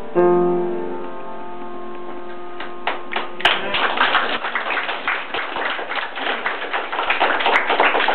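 Upright piano strikes a chord that rings on and fades over about three seconds. Then applause from a small audience breaks out and continues.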